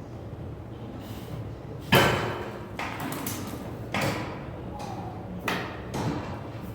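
Four clanks of gym weights, the loudest about two seconds in and the others following irregularly, each dying away briefly.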